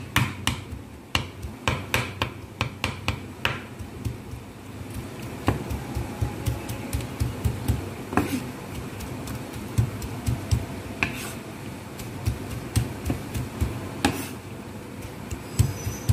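Chef's knife chopping chicken and vegetables on a wooden cutting board: quick knocks of the blade on the board, about three a second for the first few seconds, then more spread out with pauses.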